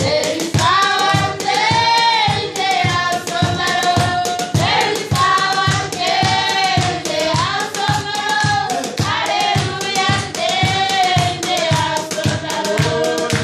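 Voices singing a worship song together, with a high melody line on top, over a steady beat about twice a second.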